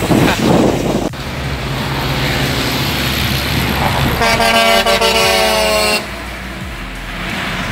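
Semi truck's diesel engine approaching, then a loud train-style air horn blast of about two seconds, beginning about four seconds in and cutting off sharply, followed by the truck rolling past. A brief rush of noise on the microphone at the very start.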